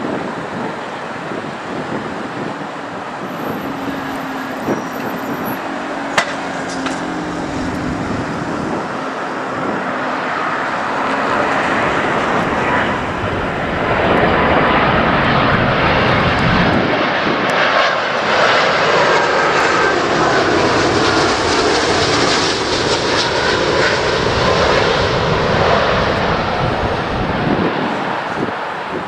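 Airbus A330 twin-engine jetliner on final approach to landing, its jet engines running in a steady roar that grows much louder about halfway through as it passes close by, then eases slightly near the end.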